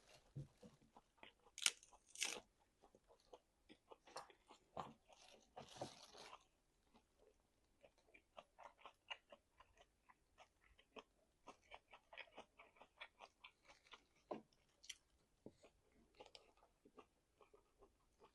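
Faint chewing and biting of meat, close to the microphone: a run of quick mouth clicks, with a few louder bites in the first few seconds.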